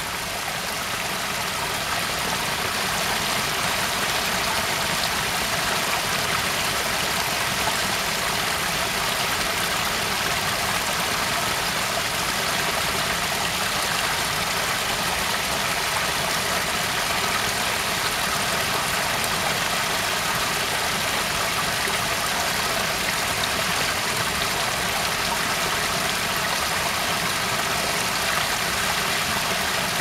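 Waterfall: a steady rush of falling water that grows louder over the first few seconds, then holds even.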